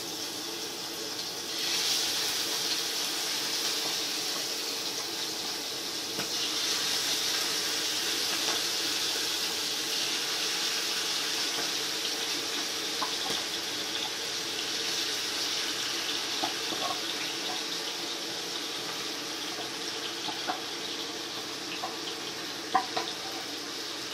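Marinated prawns sizzling and bubbling in hot oil in a frying pan. The sizzle gets louder about two seconds in as more prawns go into the oil. A steady low hum runs underneath, and there are a few light clicks near the end.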